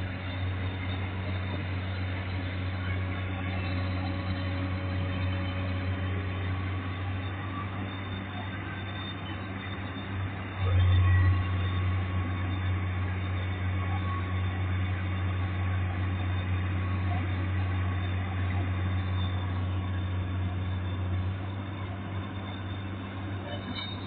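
Komatsu PC200 excavator's diesel engine running steadily with a low, even hum, briefly louder for about a second about halfway through.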